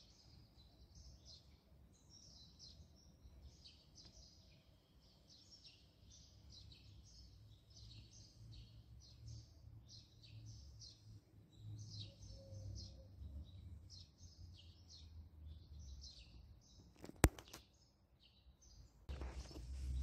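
Small birds chirping and twittering continuously over a low steady rumble of outdoor background noise. Near the end comes a single sharp click, then a louder, broader hiss of outdoor noise.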